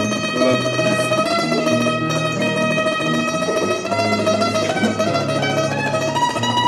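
Charango strummed rapidly over an acoustic guitar playing low accompanying notes.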